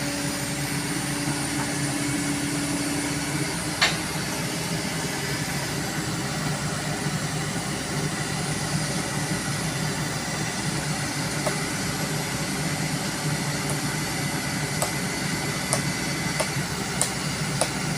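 Kobelco excavator's diesel engine running steadily while lifting a culvert pipe, with one sharp knock about four seconds in and a few light clicks near the end.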